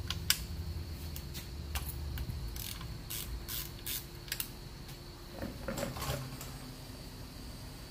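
Ratchet wrench clicking in a string of sharp clicks as the 15 mm oil drain plug is loosened. A little past halfway comes a short clatter as the oil drain pan is moved under the plug.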